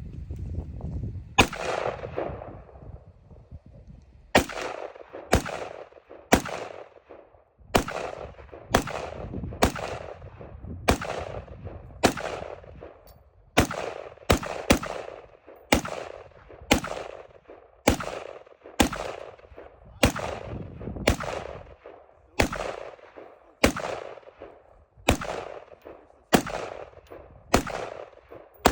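Gunshots at a shooting range: single shots fired one after another at a steady pace of about one a second, each followed by a short echo, with a few quicker pairs.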